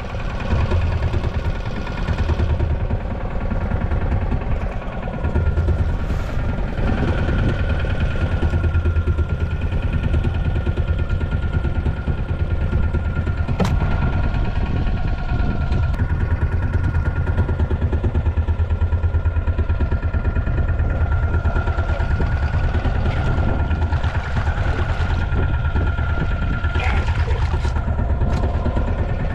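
Fishing boat's engine running steadily, a fast even throb with a thin steady tone above it; a sharp click about halfway through.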